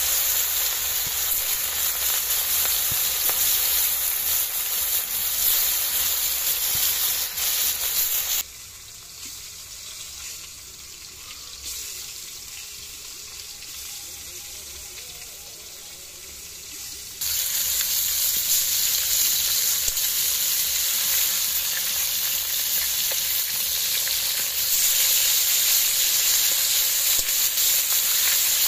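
Turmeric-coated pieces of mrigal carp sizzling as they fry in hot oil in a kadai. The sizzle falls much quieter for several seconds in the middle, then comes back loud.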